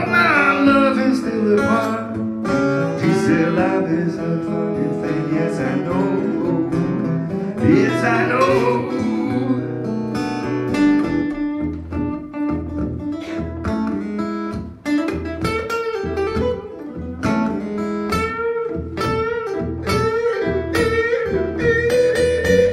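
Acoustic guitars playing a blues. From about halfway through, a lead guitar picks a run of single notes over the accompaniment.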